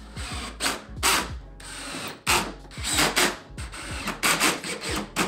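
DeWalt Atomic cordless drill/driver driving screws through a door hinge into the jamb, in a series of short stop-start bursts. Its clutch is set to 6, so it ratchets as each screw seats.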